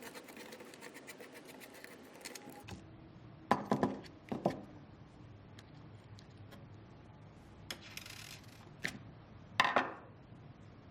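Light clicks and clinks of small hardware parts being handled and set down on a work surface: a cluster of taps about three and a half seconds in, single ones near eight and nine seconds, and the loudest near the end.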